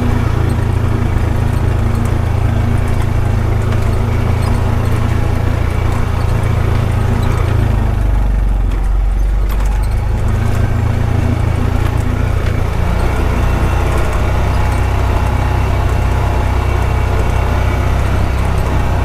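2021 Honda Pioneer 520 side-by-side's single-cylinder engine running steadily while driving. About eight seconds in, the engine note drops lower for a couple of seconds, then picks back up.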